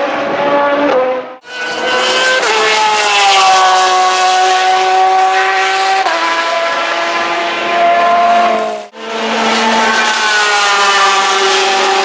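Porsche 911 RSR's flat-six racing engine at high revs as the car runs past, its pitch stepping down and climbing again through gear changes. The sound breaks off briefly twice, about a second and a half in and near nine seconds.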